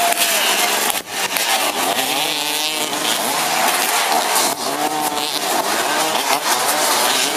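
Engines of racing vehicles revving, their pitch rising and falling, over a loud steady rushing noise.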